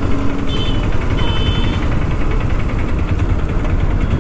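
TVS Apache RR 310 single-cylinder motorcycle engine running at low speed in heavy traffic, with a steady low rumble of traffic around it. Two short high-pitched beeps, about half a second and a second and a quarter in.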